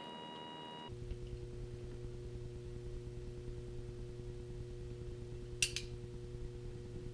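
Low steady hum with a few faint steady tones, which change abruptly about a second in; a single light click comes near the end.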